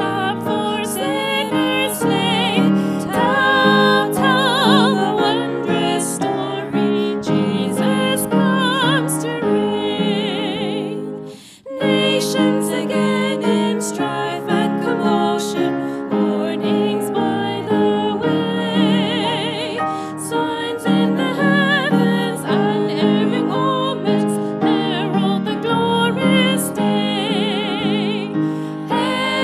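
A woman and a girl singing a hymn as a duet, their voices wavering with vibrato, over piano accompaniment. The music stops briefly about twelve seconds in, between the end of the refrain and the start of the next verse.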